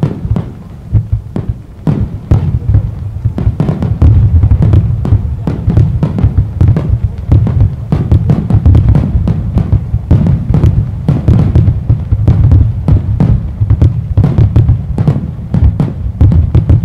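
Rapid barrage of aerial fireworks shells bursting, one boom on top of the next with crackle between them. It thickens into a near-continuous rumble of explosions about four seconds in.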